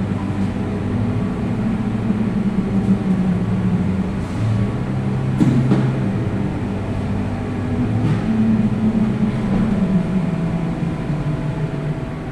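Steady low mechanical hum of running machinery, wavering slightly in pitch, with a short knock about five and a half seconds in.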